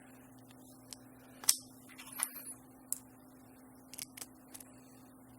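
Light clicks and taps of small plastic parts of a Tile Sport Pro tracker's casing being handled and fitted together, about seven scattered ticks with the loudest about one and a half seconds in, over a faint steady hum.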